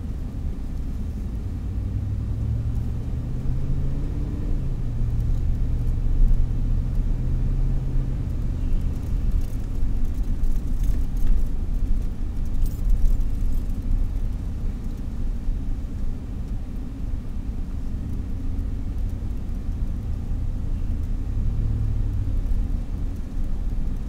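Car engine and road noise heard from inside the cabin while driving: a steady low rumble, with the engine's hum rising and falling as the car speeds up and slows.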